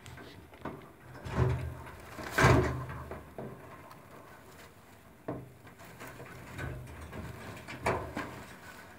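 Rustling and knocking as a hand moves among newborn rabbit kits and the hay in a nest box, with a few louder thumps, the loudest about two and a half seconds in and another near the end.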